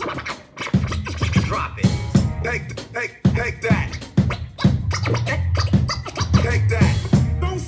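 A band plays an up-tempo number, with a steady drum beat and a bass line under it.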